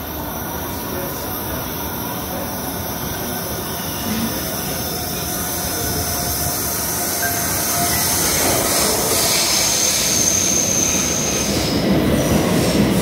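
Metro train pulling in along the platform and braking, its running noise growing louder, with a high wheel-and-brake squeal for a second or two near the end.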